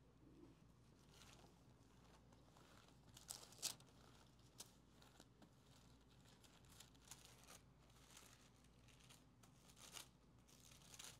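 Faint rustling and crinkling of thin Bible pages being leafed through to find a passage. There are a few sharper page flicks, the loudest about three and a half seconds in and more near the end.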